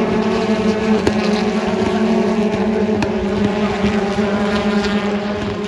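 BTCC touring car engines running at steady high revs on track, holding one note, with a few sharp crackles mixed in.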